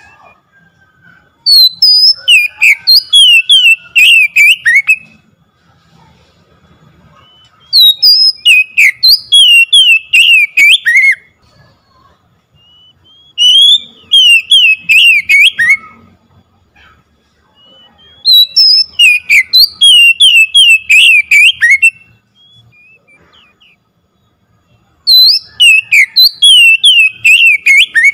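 Oriental magpie-robin (kacer) singing loudly in five bouts of quick, repeated whistled notes, each bout lasting a few seconds, with short pauses between them.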